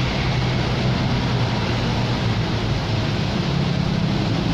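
2015 Honda Accord's 3.5-litre V6 engine running steadily, with the misfire on cylinders 1–3 (codes P0301–P0303) that the owner traced to the rear camshaft timing being out of line because of the timing belt.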